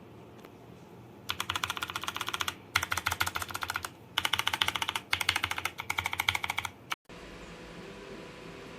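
Rapid typing on mechanical keyboard switches, Outemu Brown tactile type, in several quick runs of keystrokes with short pauses between them.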